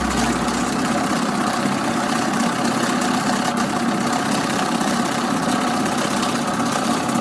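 Electric money-counting machine running steadily with a dense mechanical whir as cash is fed through it. The whir cuts off shortly before the end.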